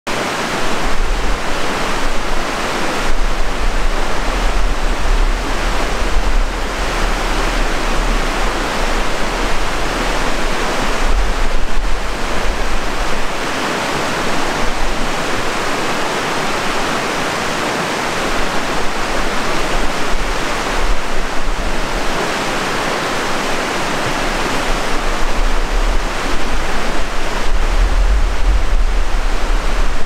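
River rapids rushing over rocks: a steady, dense rush of water, with a low rumble underneath that swells and fades every few seconds.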